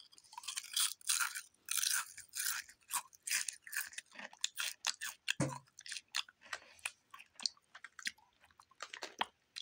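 Someone crunching and chewing potato chips close to the microphone: a long run of irregular, crisp crunches.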